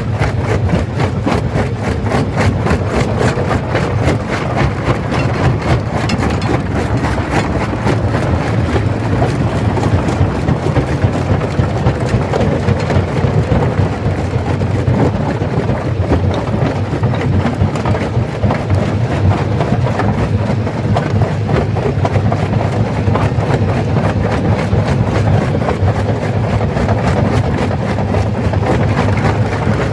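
Stone crusher running with a steady low drone, rock cracking and clattering in a dense, continuous rattle.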